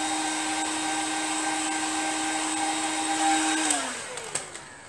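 Handheld electric heat gun blowing with a steady fan hum and hiss. It is switched off about three and a half seconds in, and its fan winds down with a falling pitch.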